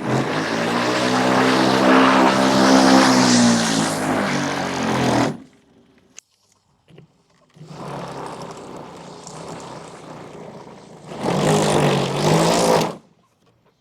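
Black & Decker MM875 corded electric mulching mower's motor switched on and run twice: a loud, rough whine for about five seconds that cuts off, then after a pause a second run, quieter at first and louder near the end. The abnormal noise comes from the mower with a broken motor fan.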